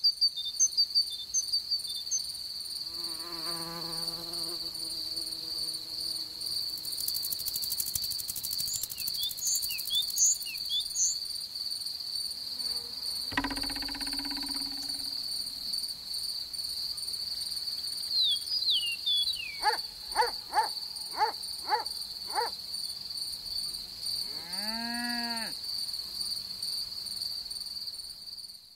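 Steady high trill of crickets in a meadow, with short bird chirps near the start and again around ten seconds in. A thump comes about thirteen seconds in, five quick falling chirps follow a little later, and one rising-and-falling call sounds near the end.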